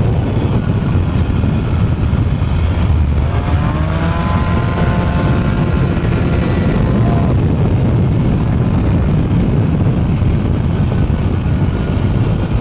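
Two-stroke go-kart engine running under way with a heavy rumble; about three seconds in it revs up to a high, steady whine that holds for a few seconds before dropping back.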